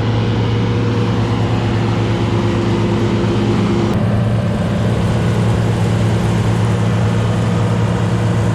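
Sampo plot combine harvester running steadily at close range, a loud, even engine and machinery hum. A higher tone in it drops out about four seconds in.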